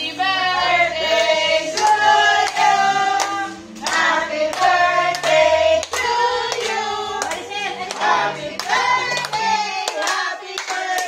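A group of voices singing together, with hands clapping along throughout.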